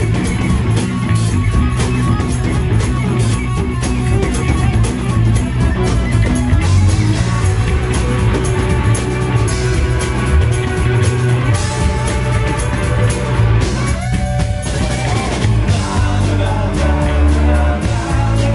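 Live rock band playing loud: electric guitars, electric bass and drum kit, with singing.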